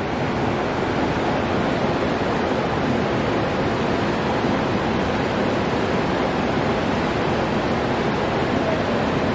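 Shallow river water rushing steadily over rocks in a riffle, an even unbroken hiss.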